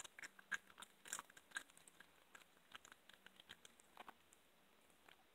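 A cat chewing and crunching through a piece of raw Cornish hen rib cage: quick, sharp crunches of bone, closely packed for the first two seconds, then fewer and further apart, dying out near the end.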